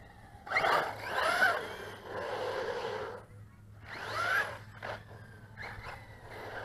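JLB Racing 21101 RC truggy's brushless motor whining in three throttle bursts, its pitch rising and falling, with tyre noise on concrete.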